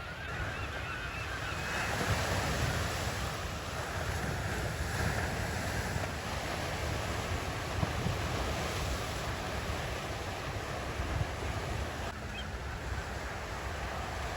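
Ocean surf breaking on a beach, the wash swelling every few seconds, with wind rumbling on the microphone.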